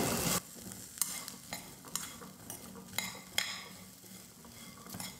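Metal spatula stirring boiled black chickpeas and grated coconut in a nonstick kadai: a soft scraping, broken by several light knocks of the spatula against the pan.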